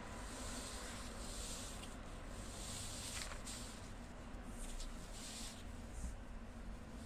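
Sheet of red couplet paper sliding and rustling over a felt mat in several soft, hissing strokes as the calligrapher shifts it along, with a faint click a little over three seconds in, over a low steady hum.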